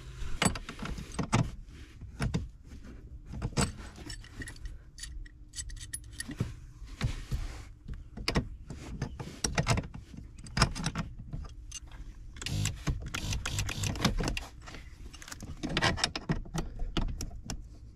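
Small pipe wrench clinking, knocking and scraping on the drive screw of a power seat motor as it is worked to turn the seized screw. The clicks come irregularly and in quick clusters.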